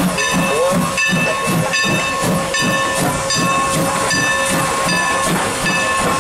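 Steam locomotive No. 475 rolling slowly past at close range, steam hissing, with a regular pulse about three times a second from its running gear and a steady high whine throughout.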